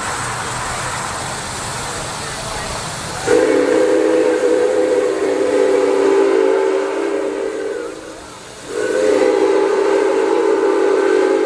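Steam whistle of Canadian Pacific 4-6-4 Hudson locomotive 2816 sounding two long blasts, several notes at once in a low chord, the first starting about three seconds in and the second after a short break. A steady hiss runs before the first blast.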